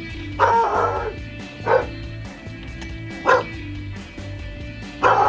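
A dog barking a few times, each bark short and a second or more apart, over background music.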